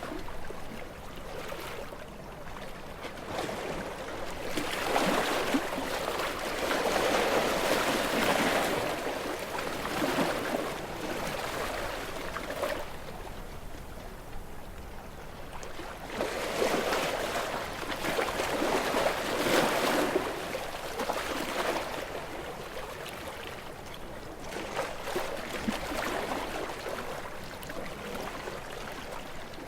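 Sea waves breaking and washing against rocks, with the splash swelling and falling back every several seconds.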